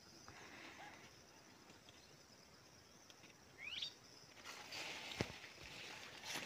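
Faint field ambience: a thin, steady high insect buzz, with one short rising bird call about four seconds in. In the last two seconds there is soft rustling of leaves and a light click.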